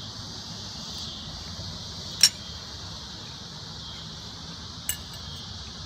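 Steady high-pitched chirring of insects, with two sharp clicks: a loud one about two seconds in and a fainter one near the end.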